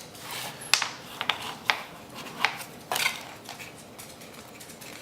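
Earbud packaging and cable being handled by hand: a scatter of sharp clicks and rustles, busiest in the first three seconds, then softer handling noise.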